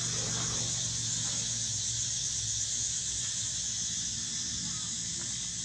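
Faint short squeals from a baby macaque in the first second or so, a few weaker ones later, over a constant high hiss.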